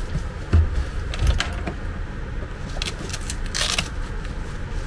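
A padded fabric carrying case being handled: two soft thumps early on and light rattling of its strap clips, then a short rustling burst a little before the end.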